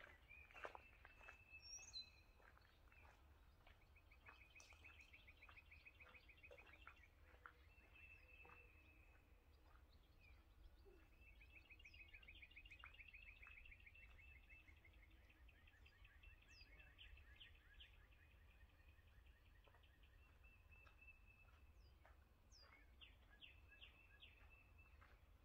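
Faint birdsong: small songbirds singing long rapid trills again and again, with a few short higher chirps. A few faint clicks in the first couple of seconds.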